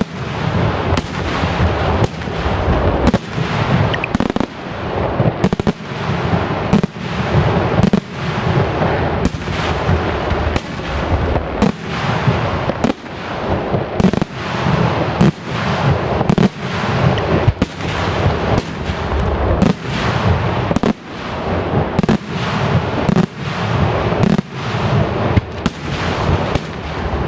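Daytime fireworks barrage: a steady, rapid run of loud salute bangs, about two a second, each trailing a low rumble, with cardboard shell debris thrown out at each burst.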